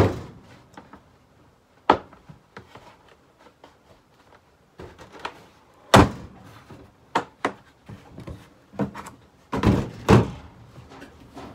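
Scattered knocks and thunks of hard objects being handled and set down, loudest right at the start and again about six seconds in, with a short clatter about ten seconds in.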